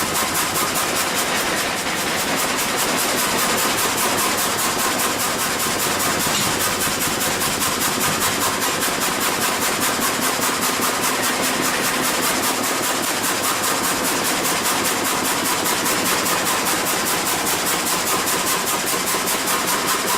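Machinery running steadily, a dense mechanical din with an even pulsing beat about two or three times a second.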